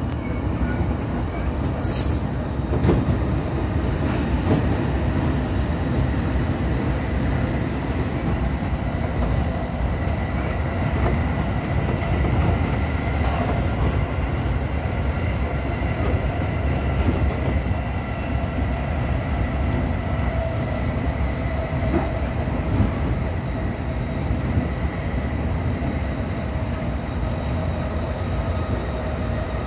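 Running noise inside a moving commuter train carriage: a steady rumble of wheels on the rails with a faint steady whine over it, and a sharp click about two seconds in.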